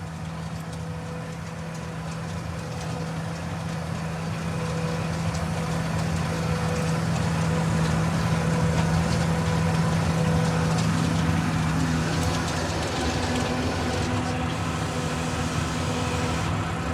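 Fendt tractor's engine running steadily under load, heard from inside the cab with the window open; the hum grows gradually louder over the first half, then eases a little.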